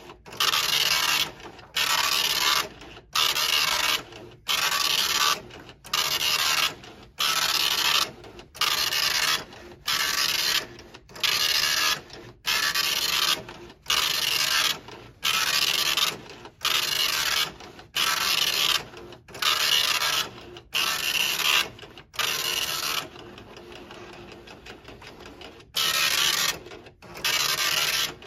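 Dot matrix printer printing line after line: rasping print-head passes of about a second each with short gaps between them as the paper advances. Late on it falls quieter for about three seconds, then resumes.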